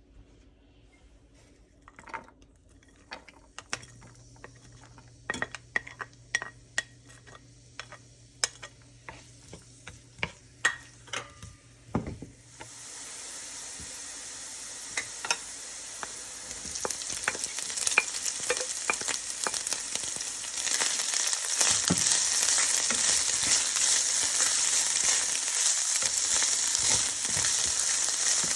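Scattered taps and clinks of a utensil against a pan. About twelve seconds in, a sudden sizzle starts as food goes into hot cooking oil. It grows louder about twenty seconds in, with the clicks of stirring running through it.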